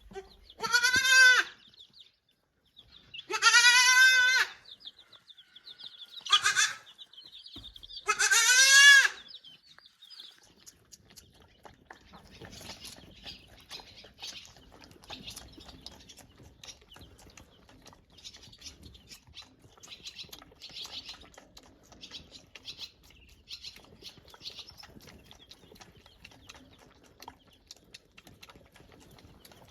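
Boer goat kid bleating loudly four times in the first nine seconds, each call high and wavering, the third one short.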